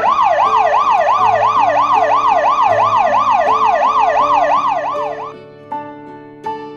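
Cartoon fire truck siren sound effect: a fast, loud wailing siren sweeping up and down about three times a second, cutting off about five seconds in, over light background music.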